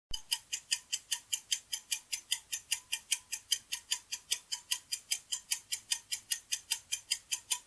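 Clock-ticking sound effect used as a quiz answer timer: steady, evenly spaced ticks, about five a second.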